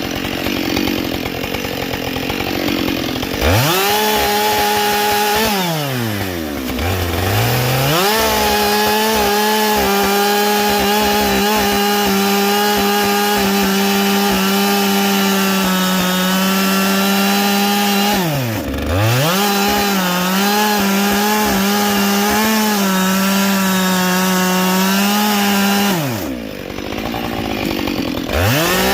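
Husqvarna 572XP two-stroke chainsaw with a carbide chain, held at full throttle and cutting wood. The engine revs up about three seconds in and holds a high, slightly wavering note. It drops back toward idle and revs up again three times: around six seconds in, briefly near the middle, and near the end.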